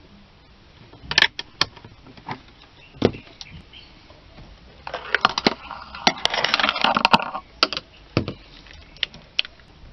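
Sharp clicks and knocks of test meters being handled: a multimeter's range selector turned and meters picked up and set down. About five seconds in there are two or three seconds of denser rattling clatter.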